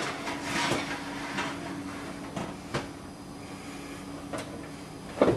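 A silicone cake pan being set onto the wire rack of an open electric oven: a short scrape and several light clicks and knocks of the metal rack, over a steady hum. A louder knock comes near the end.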